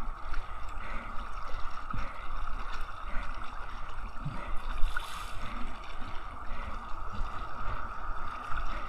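Sea water sloshing and gurgling against a kayak's hull as it moves out through small ocean waves, with small irregular splashes over a steady hiss.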